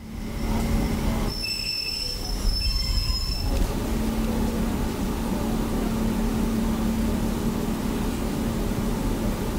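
Brakes of a BR Class 142 Pacer railbus screeching as it comes to a halt, heard from on board: a high-pitched squeal from about one to three and a half seconds in. After it, a steady low hum as the train stands with its Leyland TL11 diesel engines idling.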